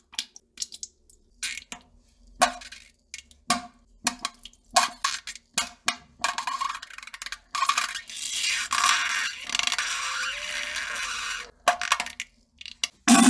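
A person pooping and farting: a run of irregular wet crackles and splats, then a steady hissing spray lasting about four seconds, then more sputtering crackles.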